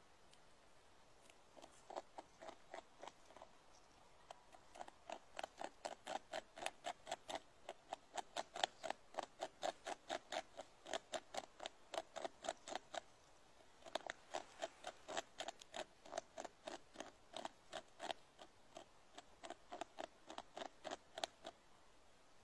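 A beaver gnawing a tree trunk, its incisors chipping wood in quick, crisp strokes about four a second. The strokes start about two seconds in, pause briefly a little past halfway, then go on until near the end.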